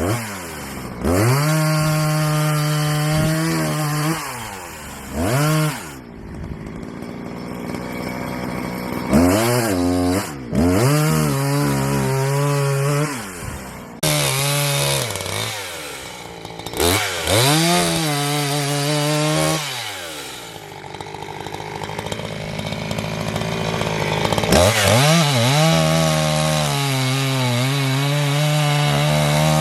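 Chainsaw cutting firewood, its engine revved up and held at full throttle for a few seconds at a time, then dropping back to a quieter idle between cuts, several times over.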